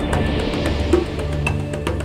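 Instrumental background music with a steady beat. A hissing wash comes in at the start and fades over about a second and a half.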